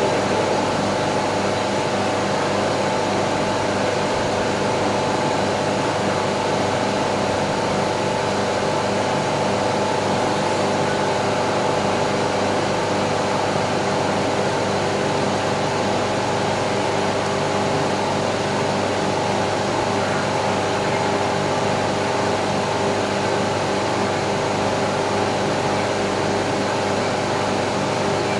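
Steady mechanical noise with a constant, unchanging hum, like a running machine or engine.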